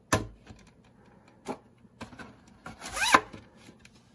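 Plastic VHS cassette being handled: a sharp click just after the start, a light knock about a second and a half in, and a short rising squeak of plastic rubbing around three seconds in.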